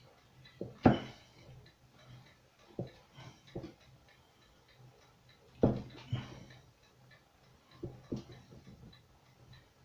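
Kitchen knife cutting caciocavallo cheese into cubes, the blade knocking on a wooden cutting board in irregular single knocks, several seconds apart at times.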